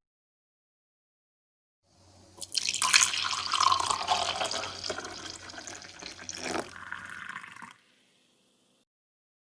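Water rushing and splashing, starting about two seconds in and cutting off sharply near the end.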